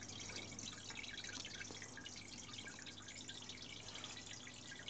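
Aquarium filter returning water into a turtle tank: a faint, continuous trickle and patter of small drops over a steady low motor hum.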